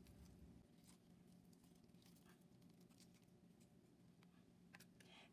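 Near silence with faint, scattered soft ticks and scratches of fingers peeling the charred skin off a roasted aubergine.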